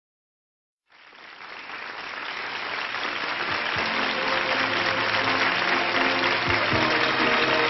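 Audience applause fades in about a second in and swells. About three seconds later, band instruments start playing under it, as at the start of a live song recording.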